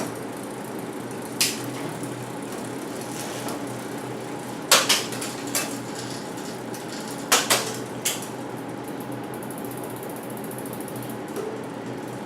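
Mountain bike drivetrain running, the chain turning steadily over the cassette. Sharp clicks and clunks come as the rear derailleur shifts the chain across sprockets: once early on, then in two short clusters about five and seven and a half seconds in.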